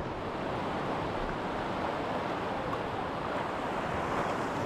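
Sea waves breaking and washing over shore rocks, a steady rushing wash, with some wind noise on the microphone.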